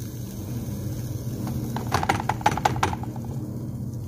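A wooden spoon knocking and scraping against a saucepan as it turns chunks of tuna, a quick run of clicks about two seconds in, over a steady low hum.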